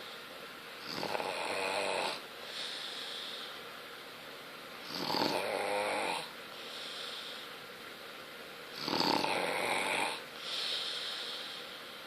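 Snoring in deep sleep: three long, fluttering snores about four seconds apart, with a softer hissing breath between each.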